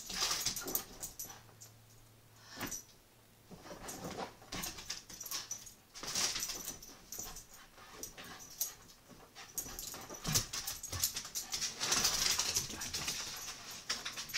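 Beagle puppy running and jumping on a bare hardwood floor: irregular quick clicks of claws and scuffs of paws.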